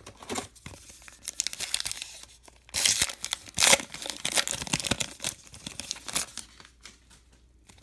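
A baseball card pack's crimped wrapper being torn open by hand, with the loudest rips about three and three and a half seconds in, followed by crinkling as the cards are worked out of the torn pack and quieter handling near the end.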